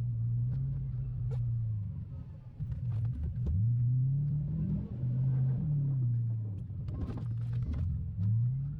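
The 8.1-litre big-block V8 of a 2002 Chevrolet Silverado plow truck running under load, its note rising and falling several times as the engine speeds up and eases off, with scattered sharp clicks over it.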